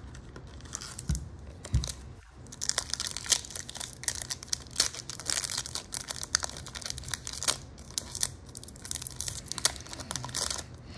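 Two soft thumps, then a Pokémon booster pack's foil wrapper being torn open and crinkled in a fast run of sharp crackles lasting most of the time.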